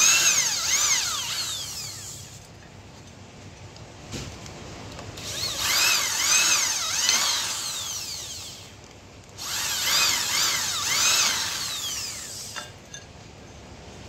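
Corded electric hand drill boring through a metal plate, running in three spells of about three seconds each with short pauses between, its whine rising and falling in pitch within each spell.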